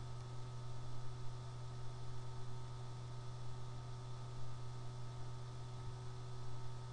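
Steady electrical hum with a constant hiss and a few faint steady higher tones: background noise on an otherwise silent screen-recording soundtrack.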